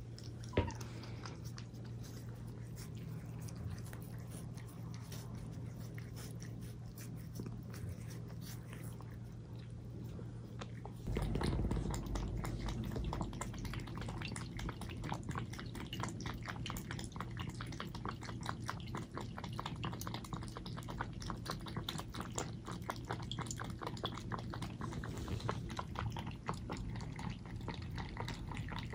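Two young tabby cats lapping milk from plastic bowls: a rapid, steady run of wet licking clicks, about four a second, starting a little over a third of the way in. Before that, a quieter stretch with a steady low hum and one brief sharp sound just after the start.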